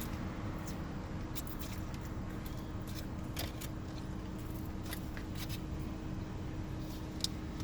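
Person eating on camera: scattered soft clicks and mouth sounds from chewing, over a steady low hum.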